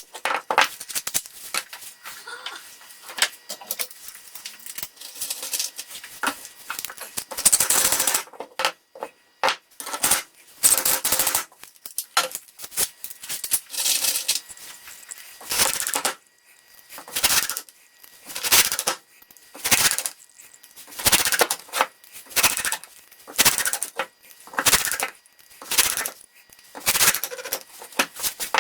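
Wood being worked by hand with short, scraping strokes. The strokes settle into a steady rhythm of about one every second and a bit from midway, after some scattered knocks and clicks early on.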